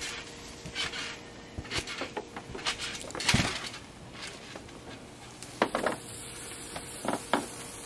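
A trampoline mat and its frame make a series of short thumps and rattles as a person bounces on it, the loudest thump a little over three seconds in. A few more short knocks follow near the end.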